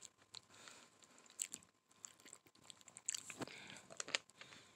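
A person chewing and crunching a hard candy close to the microphone: faint, irregular crunches and wet mouth clicks.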